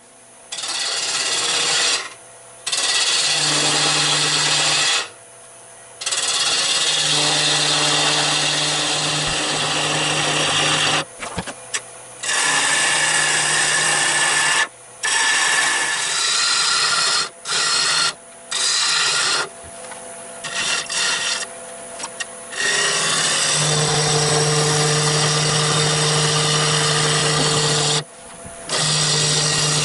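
A turning tool cutting the outside of an olive-wood blank spinning on a lathe: a rushing, scraping hiss that stops and starts again about a dozen times as the tool comes off the wood, with a steady low hum in some stretches.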